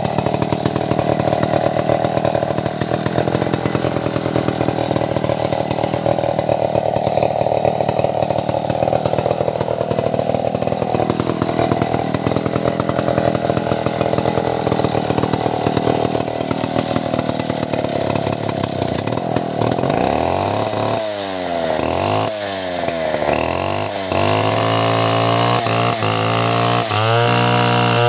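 Two-stroke chainsaw running hard while cutting into an albizia (albasia) trunk. About twenty seconds in, the engine note drops and climbs several times as the throttle is eased and opened, then it settles back to a steady high rev.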